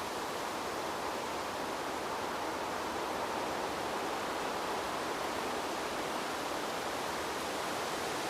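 Steady wind: an even rushing hiss that holds a constant level, with no gusts or swells.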